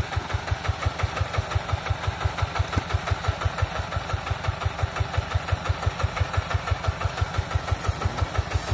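Single-cylinder diesel engine of a two-wheel hand tractor running steadily while it powers a homemade rice thresher, a regular low chugging of about five or six beats a second.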